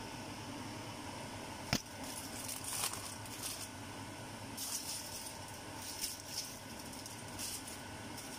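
Aluminium foil crinkling in short rustling spells as it is laid and pressed over a cooking pot, over a steady background hum. A single sharp click comes near two seconds in.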